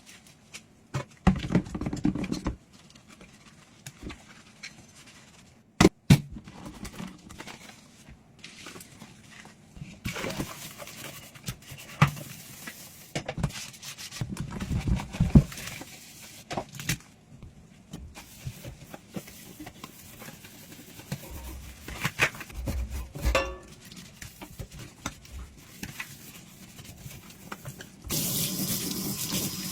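Dishes being washed by hand: scattered clinks and knocks of dishes and utensils with scrubbing and rubbing. Near the end a faucet is turned on and water runs steadily.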